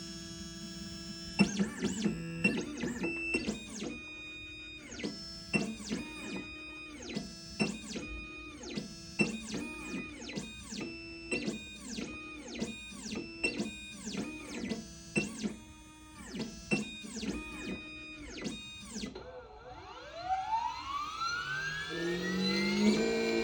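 Background music of plucked, guitar-like notes in a steady pattern, then a rising sweep near the end that leads into fuller, louder music.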